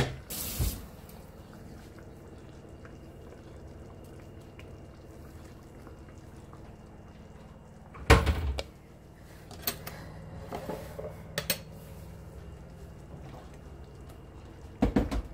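Kitchen clatter: a wooden spatula knocking against a metal frying pan at the start, then a faint steady background. A loud knock about halfway through, a few sharp clicks of pans and utensils after it, and a short cluster of knocks near the end.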